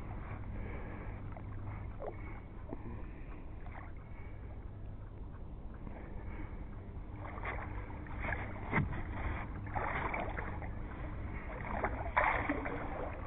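Low water and small-boat ambience with a steady low rumble, and splashing about twelve seconds in as a hooked wels catfish breaks the surface beside the boat.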